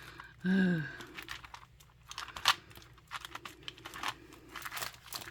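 Plastic packaging crinkling and crackling as a diamond painting kit's accessory pack is opened and handled, with a run of sharp clicks. A short hum of voice comes about half a second in.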